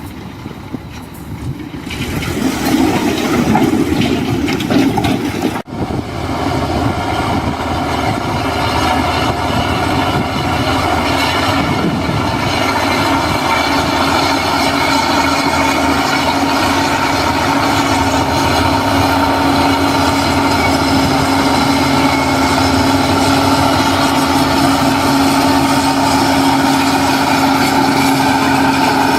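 Diesel engine of heavy earthmoving machinery running steadily. It is quieter for the first two seconds, builds, breaks off sharply once near six seconds in, then holds a steady loud drone.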